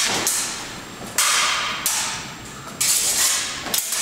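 Steel practice sabres, original 1850s Swedish army blades, clashing in sparring: about half a dozen sharp blade-on-blade strikes, irregularly spaced, each leaving a ringing metallic tail.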